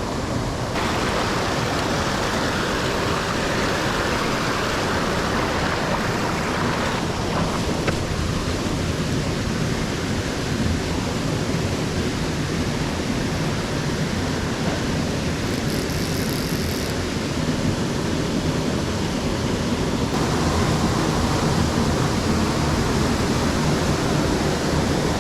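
Steady rush of a fast-flowing mountain trout stream, its tone shifting a few times.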